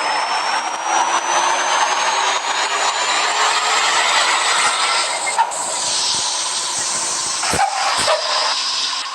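Bus engine with a modified exhaust running under load, with a whine that rises slowly in pitch over the first five seconds and a hissing haze over it. Two sharp knocks come near the end.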